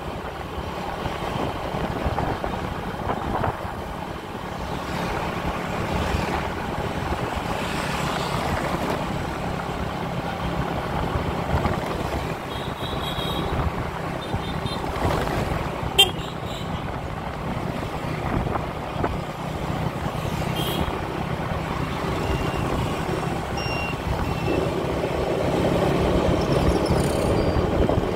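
Motorbike riding through city traffic: a steady engine and road noise, with a few short horn toots about halfway through and a single sharp click a little after.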